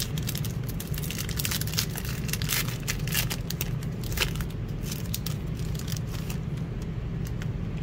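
A foil trading-card pack wrapper being torn open and crinkled in the hands: a dense run of crackles and crinkles, over a steady low hum.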